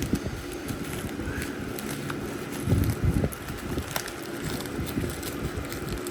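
Handling noise of a small shipping package being opened: rustling and rubbing close to the microphone, with a few dull thumps about three seconds in.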